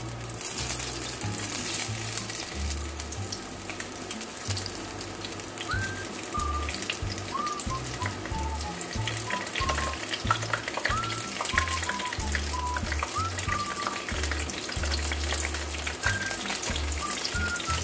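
Batter-coated dried chillies deep-frying in hot oil in a pan: a steady sizzle full of fine crackles, with more pieces dropped into the oil as it goes.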